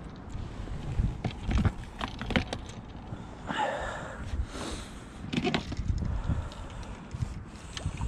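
Handling noise from a fishing rod and spinning reel: scattered clicks and knocks over a low rumble, with a short rustle in the middle.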